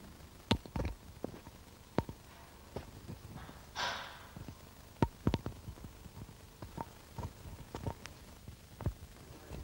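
Scattered sharp knocks and clicks at irregular intervals, with one breathy, sigh-like rush about four seconds in.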